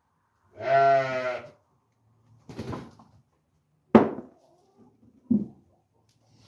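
A farm animal bleating: one long, wavering bleat about a second in, then three shorter, fainter sounds. These are livestock calling to be fed.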